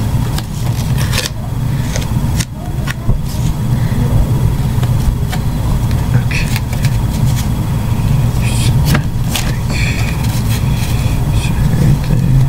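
Duct tape crackling and ripping as it is pulled off the roll and pressed onto a cardboard box frame, in short scattered bursts over a steady low rumble.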